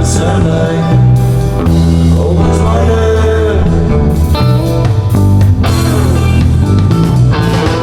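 Rock-style background music led by guitar, with bass and drums.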